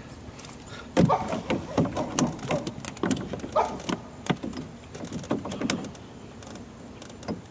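A dog barking in a rapid, irregular series of about a dozen short barks, starting about a second in and stopping about six seconds in.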